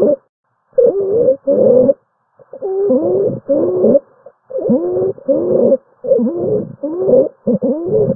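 Stridor recorded as a lung sound: harsh, pitched breath noises with sliding tones, repeating in rapid bursts about once a second. This is the sign of a narrowed upper airway.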